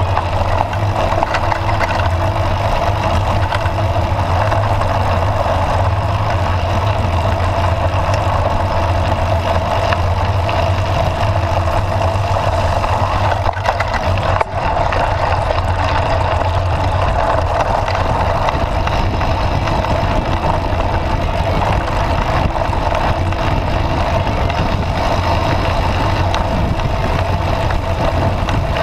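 Steady noise of a mountain bike being ridden along a dirt track: wind and tyre noise on the camera's microphone, with a brief dip about halfway through.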